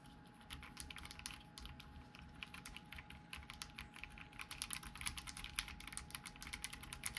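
Keys of a Dark Project ALU87B mechanical keyboard being typed on quickly, a fast continuous run of key clacks that starts about half a second in.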